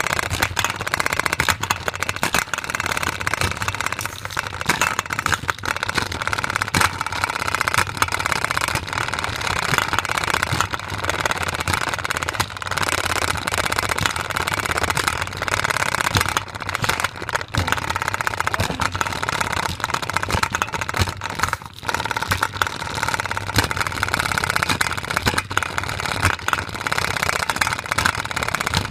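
A spinner carrying a Play-Doh container, banging and rattling rapidly and without a break as it spins. The Play-Doh inside is unbalanced, so the container shakes.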